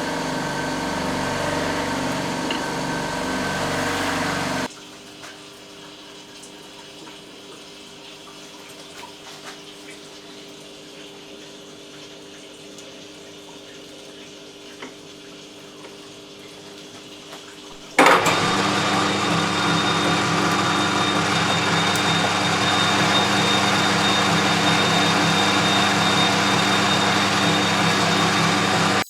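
Machine-tool motor running steadily, cutting off abruptly about five seconds in to a quieter steady hum, then a loud machine starting suddenly about eighteen seconds in and running steadily with a thin high whine.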